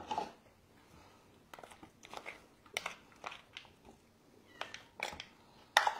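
Wet cat food being squeezed from a small foil pouch into a feeding dish: short crinkles of the pouch and light clicks and scrapes on the dish, every half second or so, with cats eating.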